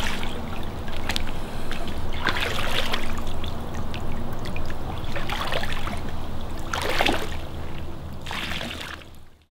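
Muddy water splashing and sloshing around a person in waders, a splash every second or two over a steady low rumble. The sound fades out at the very end.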